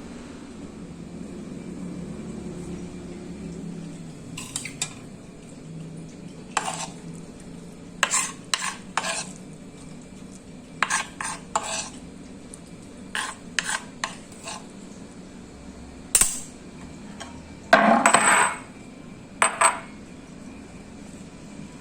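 Kitchen utensils and dishes clinking and knocking: a scatter of short clicks and knocks, with a longer, louder clatter about eighteen seconds in, over a low steady hum.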